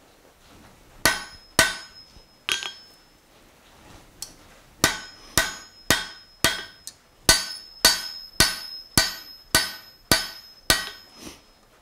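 Hand hammer striking a hot steel bar on an anvil, each blow ringing briefly, while a taper is drawn out. There are three blows, a short pause, then a steady run of about a dozen blows at roughly two a second.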